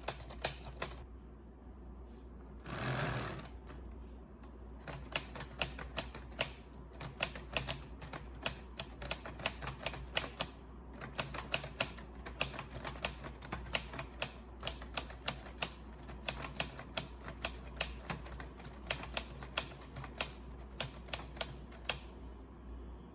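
Keys of a LEGO 21327 Typewriter model being pressed in a quick, irregular run of plastic clicks. The run pauses briefly now and then and stops shortly before the end. About three seconds in comes a short rasping rush.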